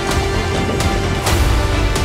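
Cinematic soundtrack music with sustained tones over a heavy bass, with swishes recurring every second or so.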